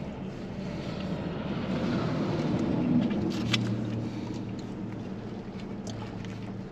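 Steady low hum of a car idling, heard inside the cabin, growing louder toward the middle and then settling, with a couple of small clicks about three and a half seconds in.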